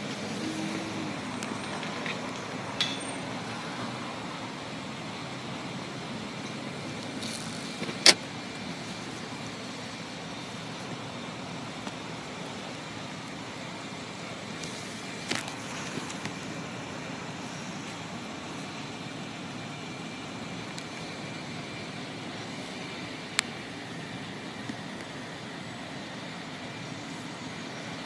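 Steady road traffic and idling cars heard from inside a stopped car. A few sharp clicks stand out, the loudest about eight seconds in.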